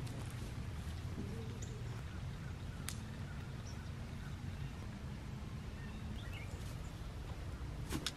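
Low, steady rural outdoor background noise with a few faint, short bird chirps around the middle and a couple of light clicks.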